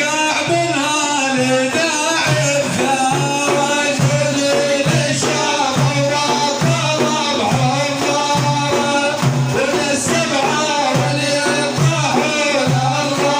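Music from an Arabic praise-song (madeeh) performance: a melody line over a steady low beat that repeats about every half second.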